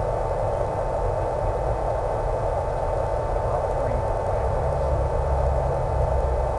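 Electric RC plane in flight heard over an analog FPV video link: a steady hiss of static with a constant hum from the motor and propeller.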